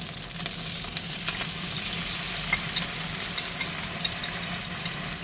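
Chicken thigh pieces sizzling in butter in a frying pan, a steady hiss with scattered crackles as the sweet-sour soy and ketchup sauce is poured in over them.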